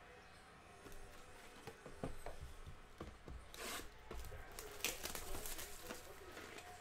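Faint rubbing, scuffing and light taps of a cardboard trading-card hobby box being handled, turned over and slid on the table. A couple of louder scrapes come about halfway through.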